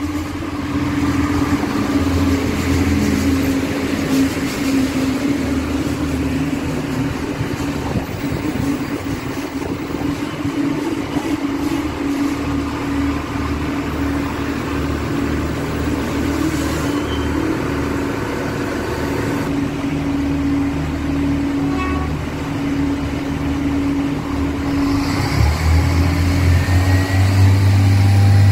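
Iarnród Éireann 29000 Class diesel multiple unit at the platform, its diesel engines running with a steady hum over a low drone. The low drone swells about three seconds from the end as the train pulls away.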